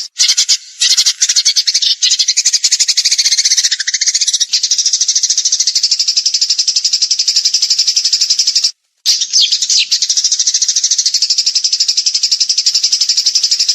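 Songbird singing a rapid, high-pitched trilling 'tembakan' burst song, the fast machine-gun-like rattle used as masteran (song-tutor) material for competition birds. The trill runs almost without a break, stopping briefly right at the start and again about nine seconds in.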